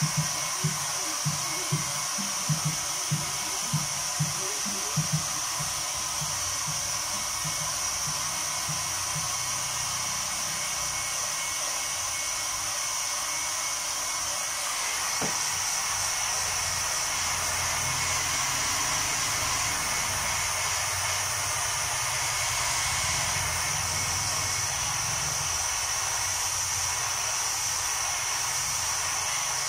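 Handheld hair dryer blowing steadily, drying freshly printed water-based ink on the shirt. A low thump sounds about twice a second in the first few seconds.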